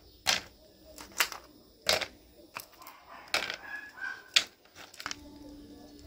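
Ice cubes dropped one at a time into a metal tin, clinking sharply about eight times at an uneven pace.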